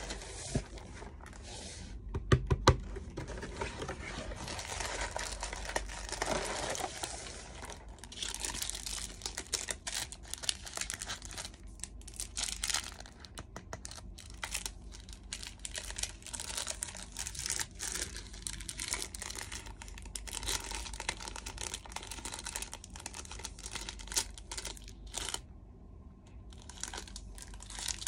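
Clear plastic wrapping crinkling and rustling as a plastic-wrapped pack of paper is handled and opened by hand, with a few sharp clicks about two seconds in.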